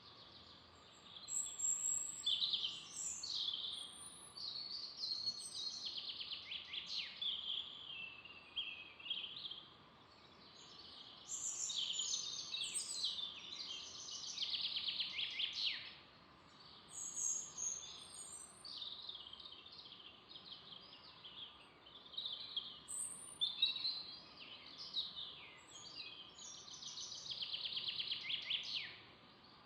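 Songbirds singing: long, fast, high-pitched warbling and trilling phrases, some of them falling in pitch, repeated with short pauses between, over a faint steady background hiss.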